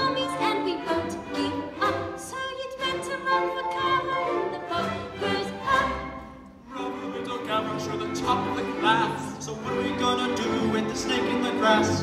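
Student orchestra with strings playing a slow ballad accompaniment, with a solo singer at a microphone; the music eases off briefly about halfway through, then resumes.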